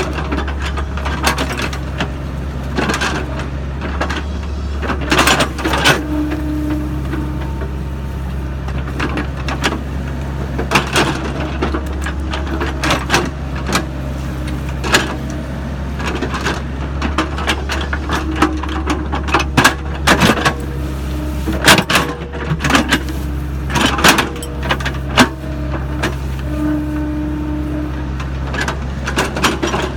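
Sany SY55C mini excavator working: its diesel engine runs steadily under many sharp knocks and clanks, with a few brief whines along the way.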